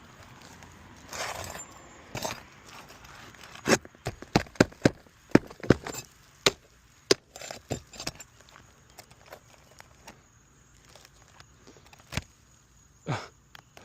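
Scraping, then a quick run of sharp metallic clicks and taps, a dozen or so between about four and eight seconds in, with a few single knocks later: a metal tool working under roof shingles to pry out their nails.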